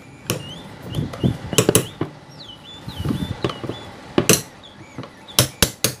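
Hammer tapping a screwdriver held as a drift against the locking ring of a twin-tub washing machine's spin-tub seal, knocking the ring round to tighten it. Sharp metallic taps, a few spaced apart, then a quick run of four or five taps about a second before the end.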